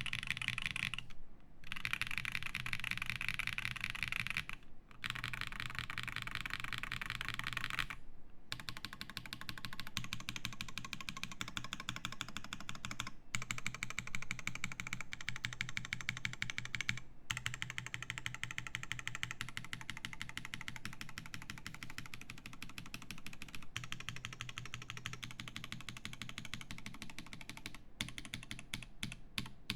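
Bauer2 SE mechanical keyboard with lubed Zaku switches, a polycarbonate plate and GMK Olivia keycaps, typed on fast: a dense, continuous run of keystrokes broken by a few brief pauses, slowing to separate single keypresses near the end.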